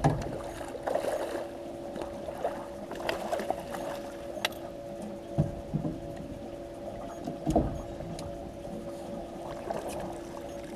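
A hooked channel catfish being played alongside a pontoon boat: water splashing and sloshing at the side, with a few dull knocks against the boat, over a steady low hum.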